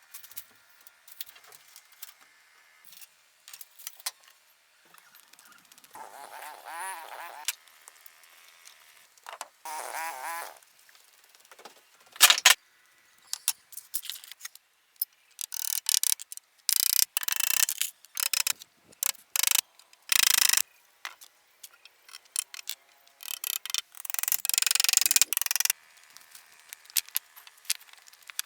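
A string of hand-work noises: two short scraping, wavering sounds, a sharp knock, then repeated loud noisy bursts.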